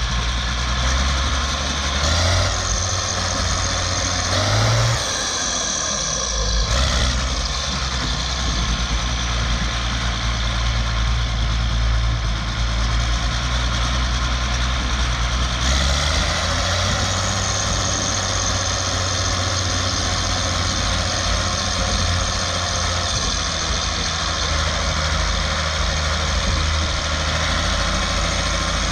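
Zetor tractor's six-cylinder turbo diesel engine running under way, heard from the bonnet. Its speed changes a few times within the first seven seconds, then steps up about sixteen seconds in and holds steady.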